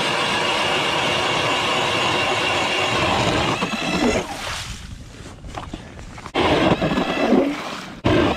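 StrikeMaster battery-powered ice auger drilling through lake ice, its motor running with a steady whine. About four seconds in the steady drilling stops, and the sound turns into irregular, uneven surges of noise as the auger is worked free of the slushy hole.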